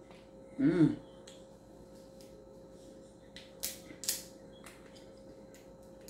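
A short hummed "mmm" just under a second in, then a few sharp snaps and cracks of crab leg shell being broken apart by hand, the loudest around three and a half to four seconds in.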